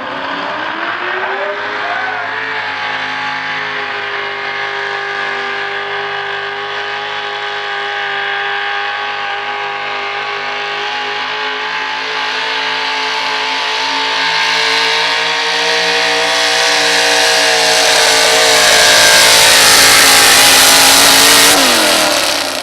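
A pulling vehicle's engine during a truck or tractor pull: it revs up in the first two seconds and holds at high, steady revs under load. A growing hiss builds over the last third, and about 22 seconds in the revs drop sharply as the run ends.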